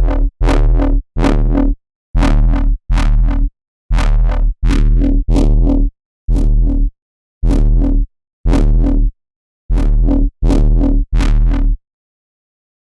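Synthesizer bass stabs: short, loud notes with a deep bass tone and a white-noise hiss on top that fades with each stab. They come in clusters, several of three in quick succession, with silent gaps between, and stop about a second before the end.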